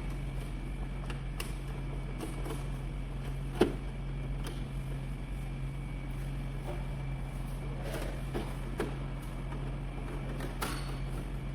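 Scattered clicks and knocks of parts and tools being handled, one sharper knock about three and a half seconds in, over a steady low hum.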